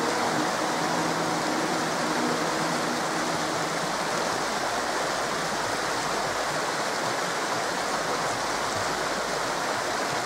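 Water of a shallow, rocky stream rushing steadily over small cascades, with a continuous splashing hiss.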